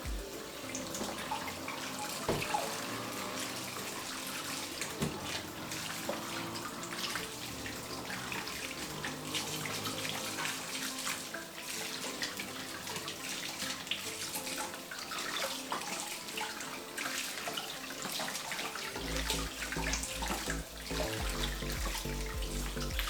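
Water from a kitchen tap running into a sink while dishes and knives are rinsed, with frequent small clinks of utensils against each other and the sink.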